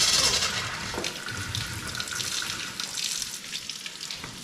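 Water running from a kitchen faucet into a sink. The flow is loud at first and eases about half a second in, then carries on as a softer spattering stream.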